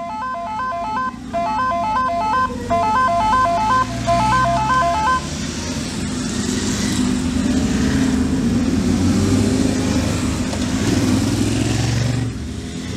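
A group of sport motorcycles idling and revving on a track's starting grid, the engine noise building from about four seconds in and dropping off near the end. Over the first five seconds a repeating pattern of electronic beeping tones sounds on top.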